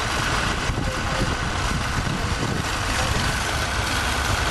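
Tractor engine running steadily at low revs, a constant low rumble with a faint steady whine above it.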